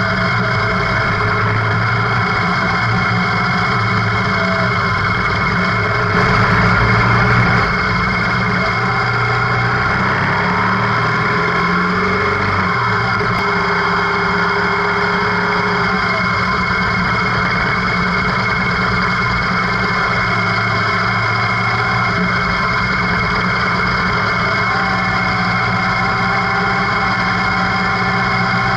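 Motorcycle engine running under way, heard from the bike with a steady rush of wind, its pitch rising and falling a few times near the middle as the rider works the throttle. A short louder patch comes about six seconds in.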